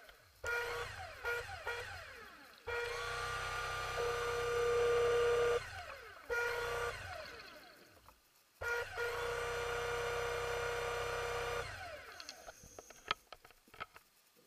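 Scuba diver breathing through a regulator underwater, heard as two long spells of humming rumble about six seconds apart, with falling whistly glides between them and a few clicks near the end.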